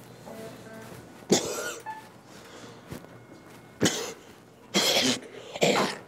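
A man coughing close up: one cough about a second in, then three more in quick succession in the second half.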